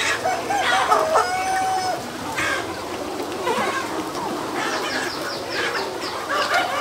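A large flock of meat chickens calling and clucking, many birds at once, with a longer drawn-out call about a second in and a quick run of short clucks in the second half.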